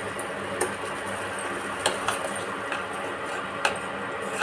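A spoon stirring a thick ginger and jaggery mixture boiling in a pan, clicking against the pan three times over a steady hiss of the mixture cooking.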